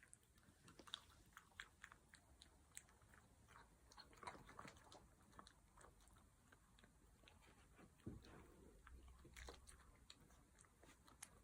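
A schnauzer chewing and crunching a flaky croissant: faint, irregular crackles and clicks of teeth on pastry.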